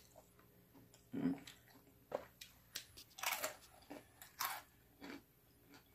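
Biting into and chewing a fried crab rangoon: a few separate crispy crunches, roughly a second apart.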